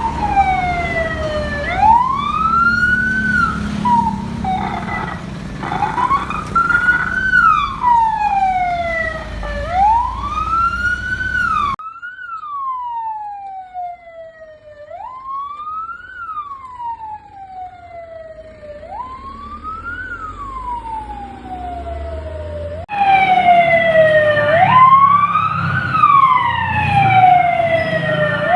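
Fire engine sirens wailing, each cycle sliding down and back up in pitch over about three to four seconds, with a low engine rumble underneath. The sound switches abruptly to a different siren twice, the middle one fainter.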